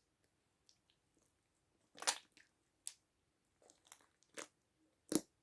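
Slime being squeezed and kneaded in the hands, making irregular sharp popping and clicking sounds, the loudest about two seconds in. The slime has lotion worked in to soften it.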